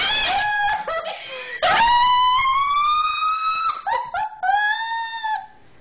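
Women laughing, then a long high-pitched squeal that rises slightly in pitch over about two seconds, followed by a second, shorter squeal.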